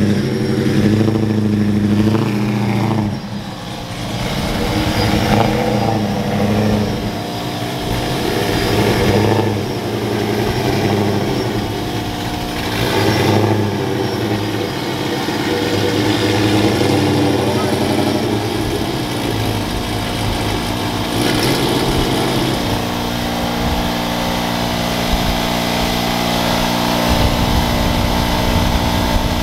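Supercharged 5.7 Hemi V8 of a 2011 Ram 1500 R/T running, a little louder for the first three seconds as the truck climbs onto the dyno, then settling to a steady idle.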